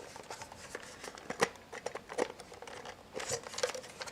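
Scattered small clicks and scrapes of a toy camcorder's plastic housing being handled with its screws removed, a few sharper clicks standing out.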